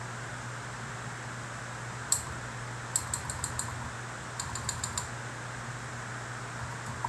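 Antique manual typewriter keys being struck: a single keystroke about two seconds in, then two quick runs of six or seven keystrokes each.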